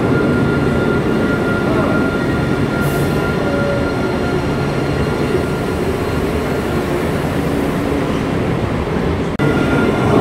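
Alstom Citadis low-floor tram rolling past slowly in an underground station: a steady rumble of wheels on rail, with a thin steady whine above it. The sound breaks off for an instant near the end.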